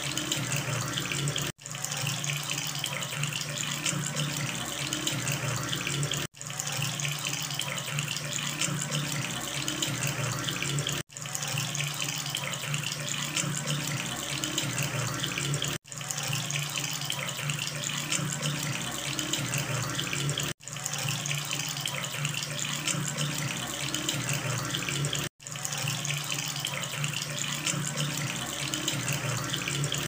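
Water running steadily from a faucet's aerated spout into a ceramic washbasin, a continuous splashing rush. It cuts out for an instant about every five seconds.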